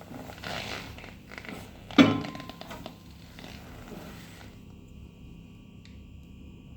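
Handling knocks and rustling on a microwave oven, with one sharp thunk about two seconds in. Then the noise stops and a faint steady electrical hum remains.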